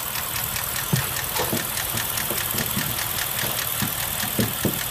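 BMW 645's N62B44 4.4-litre V8 idling with a fast, regular knock from the engine. The uploader attributes the knock to scored (scuffed) cylinder walls.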